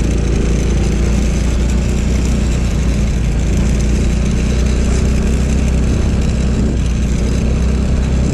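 Motor scooter engine running steadily at cruising speed, with wind and road noise over the riding camera's microphone.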